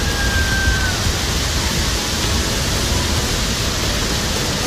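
A torrent of flood water crashing and pouring against the side of an open tram: a steady, loud rush of water noise. A faint high tone sounds through it in the first second.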